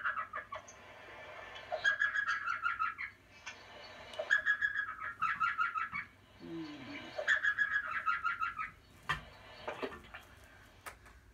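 Elf owl calling: bouts of rapid, high yipping notes, about one bout every two to three seconds. Two sharp knocks near the end.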